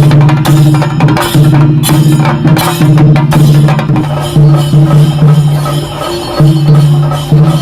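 Chenda melam: Kerala chenda drums beaten in fast, dense strokes over a sustained low droning tone, which drops out briefly about four seconds in and again about six seconds in.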